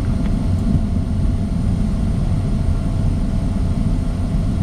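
Cockpit noise of a Cessna 680 Citation Sovereign business jet rolling along the runway after landing: a steady low rumble of wheels and idling turbofan engines, with faint steady tones above it.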